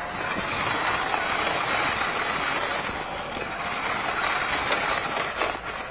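Remote-control toy sports car driving over stone paving, its small plastic wheels rolling and its electric motor running steadily, a little quieter near the end.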